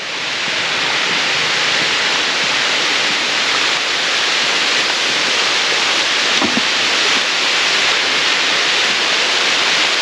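Steady rush of water falling at a waterfall and pouring over a stone weir, which are running full after winter rain. The sound swells during the first second and then holds.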